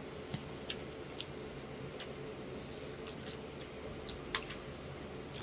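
Close-up chewing of creamy shrimp fettuccine Alfredo: scattered wet mouth clicks and smacks, the sharpest about four seconds in.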